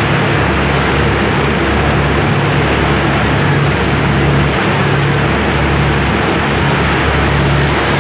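Steady running noise of a cruise boat under way: an engine hum that swells about once a second, under a constant rush of wind and water.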